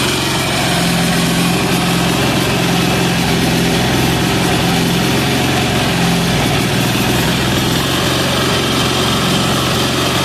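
186FA single-cylinder air-cooled diesel engine running steadily, fed on filtered used motor oil in place of diesel fuel.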